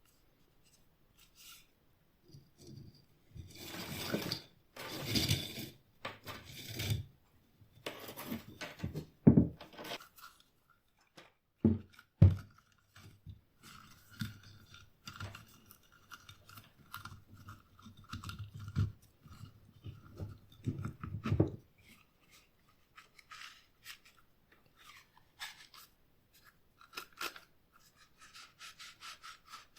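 Hand-work on a small metal tool: scraping and rubbing strokes with a few sharp knocks around the middle, then lighter rubbing.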